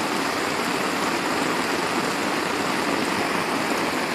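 Heavy rain pouring steadily on the forest and on a tarp shelter overhead, an even unbroken hiss.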